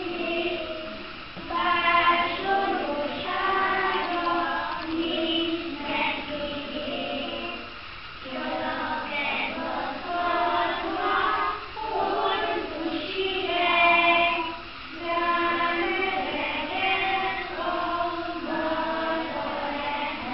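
Young children singing together in a group, a song in sung phrases with short breaks between them.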